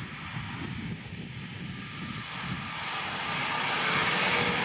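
Jet airliner engines making a steady rushing noise with a faint whine, growing steadily louder over the last couple of seconds.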